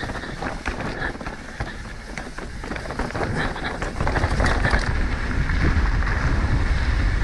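Mountain bike descending a rocky technical trail: tyres crunching over rock and dirt and the bike clattering over a quick run of knocks. Wind rushing over the microphone grows louder from about four seconds in.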